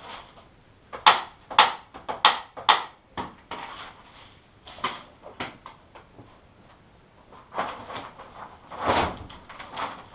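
Polythene sheeting being handled and pulled taut over a timber dome panel: four sharp snaps about half a second apart starting about a second in, more scattered snaps, and a heavier thump near the end.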